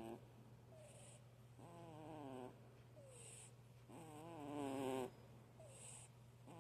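A pet cat snoring in its sleep: a regular cycle of pitched, rasping snores, each about a second long, roughly every two and a half seconds, with a short soft hiss of breath between them.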